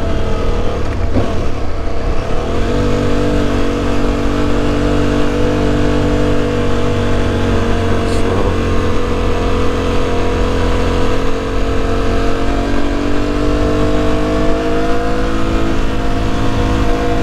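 Aprilia Tuareg 660's parallel-twin engine pulling the motorcycle along at a steady speed, with wind rumble. The engine note is unsettled for about the first two seconds, then holds an even pitch, rising a little near the end.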